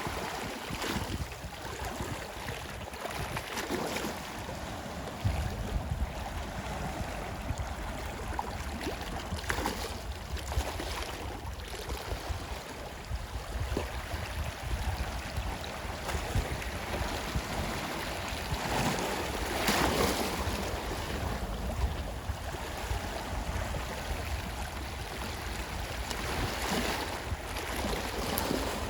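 Sea waves washing onto a shore, a continuous rush of surf that swells and falls back irregularly several times, over a low rumble.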